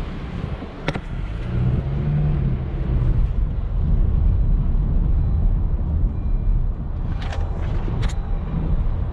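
Passenger car driven slowly, heard from inside the cabin: a steady low engine and tyre rumble. There is a sharp click about a second in and two more clicks near the end.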